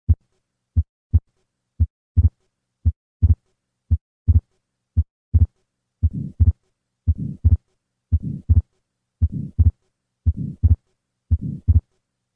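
Heart sounds at about one beat a second: plain lub-dub beats at first, then from about two seconds in a split second heart sound, and from about six seconds in a systolic murmur after each first sound. A fixed split second sound with a systolic flow murmur across the pulmonic valve is the classic sign of an atrial septal defect.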